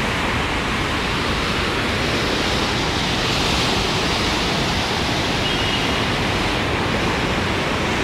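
Rain-swollen, muddy mountain river rushing below a bridge: a steady, even noise of fast whitewater.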